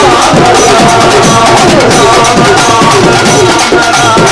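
Urumi melam drum ensemble playing loudly: fast driving drum strokes under repeated gliding, moaning pitch sweeps from the rubbed urumi drums.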